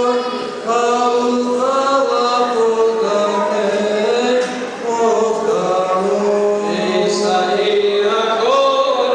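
Byzantine-style liturgical chanting of the Greek Orthodox wedding service: sung phrases with long held notes and slow melodic turns, broken by short breath pauses about half a second in and near the middle.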